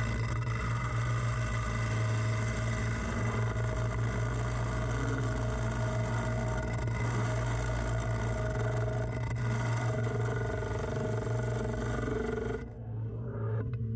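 Wood lathe running steadily while a long hollowing bar cuts inside a spinning segmented wood vase, a constant motor hum with the hiss of the cutter. Near the end the hiss cuts off sharply and a lower, quieter sound remains.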